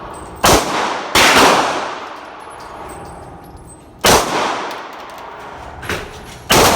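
Gunshots: four loud shots at uneven intervals with a fainter one just before the last, each followed by a long trailing echo.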